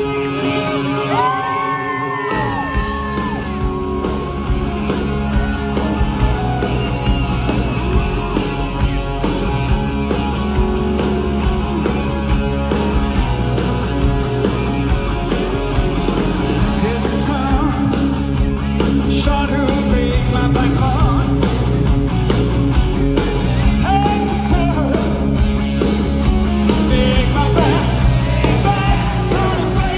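Live rock band at full volume: an electric guitar riff, with bass and drums coming in about two seconds in, and yelled and sung vocals over the music.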